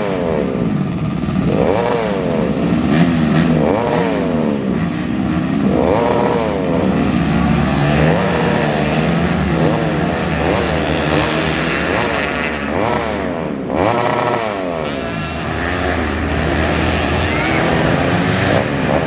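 Dirt bike engines revving hard, the pitch climbing and dropping again every second or two as the bikes accelerate and shift through the gears, with more than one engine heard at once.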